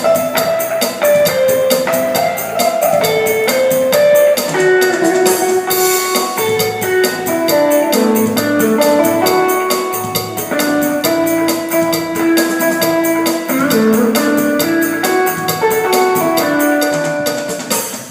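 Korg Pa600 arranger keyboard playing a cha-cha-cha style: a single melody line stepping over the auto-accompaniment's bass and Latin percussion, in a steady dance rhythm.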